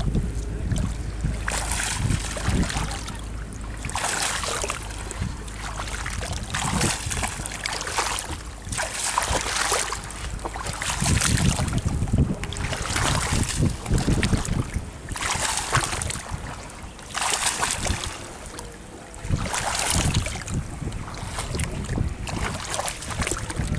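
Water splashing in repeated strokes, roughly one every one and a half to two seconds, over a low rumble of wind on the microphone.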